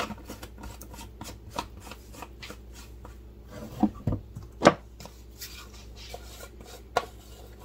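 Small clicks, taps and rustles of plastic spice shakers and a metal measuring spoon being handled over a plastic blender jar. A few louder sharp knocks come around four to five seconds in, the loudest just under five seconds in, and another near the end.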